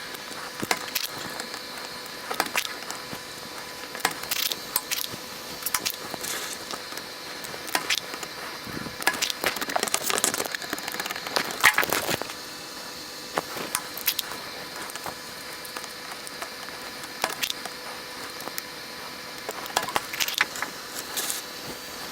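Irregular sharp plastic clicks and snaps from a mechanical keyboard being taken apart by hand, its parts pressed, unclipped and pulled out one after another. The loudest snaps come about halfway through.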